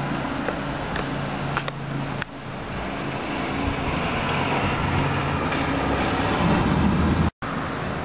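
Steady outdoor rumble and hiss with a low, even hum underneath, cut off completely for an instant near the end.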